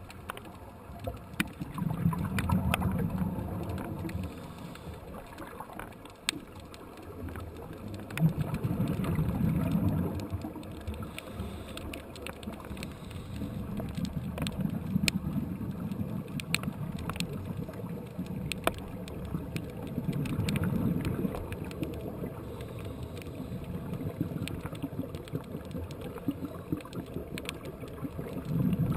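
Scuba diver's exhaled regulator bubbles gurgling in five bursts about six seconds apart, heard through a GoPro's underwater housing, with scattered faint sharp clicks between.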